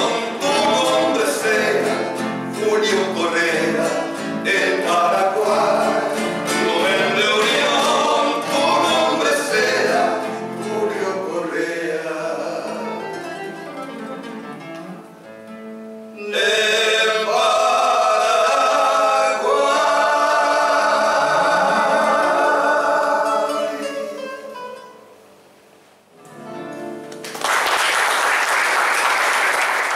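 Men's voices singing a Spanish-language song over three strummed classical guitars. The song closes on a long held chord that fades away, and audience applause breaks out near the end.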